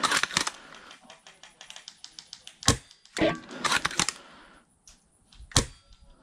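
Airsoft gunfire: a quick run of light clicks at about ten a second, then a few louder sharp single cracks and knocks.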